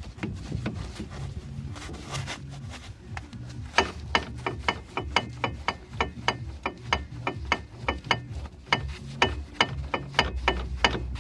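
Worn inner CV joint on a Ford Focus II driveshaft knocking: sharp, evenly repeated knocks about two a second, starting about four seconds in, over a low steady hum.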